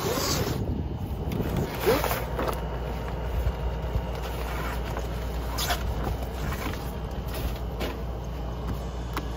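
Old vinyl RV slide-topper awning being worked loose and slid out of its rail: scattered scrapes and rustles of the fabric and its roller, over a steady low hum.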